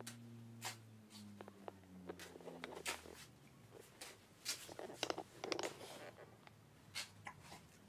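Faint scattered taps and soft slaps of a crawling baby's hands and knees on a ceramic tile floor, busiest about five seconds in. A low steady hum sounds under the first three seconds and then fades away.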